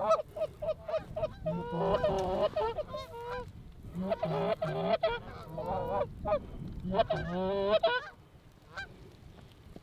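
Canada geese honking: many short, overlapping honks come in three clusters, then die away near the end.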